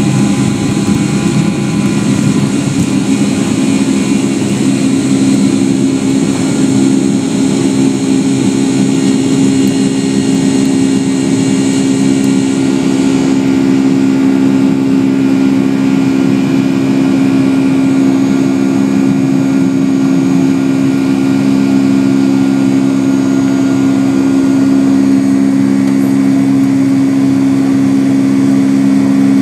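Cabin noise of a Boeing 757-200 with Pratt & Whitney PW2000 engines in flight after takeoff: a steady engine drone with a constant low hum under airflow noise. About halfway through, the higher hiss eases a little.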